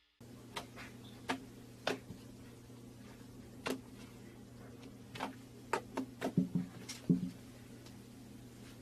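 Scattered light clicks and taps of small containers and tools being handled on a table, most frequent a little past halfway, over a steady low hum.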